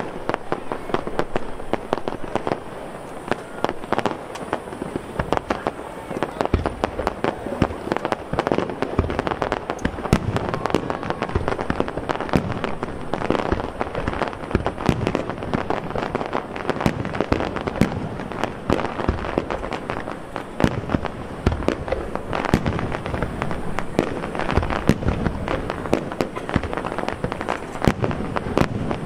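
Aerial firework shells bursting one after another, a dense run of booms and crackle with many bursts in quick succession.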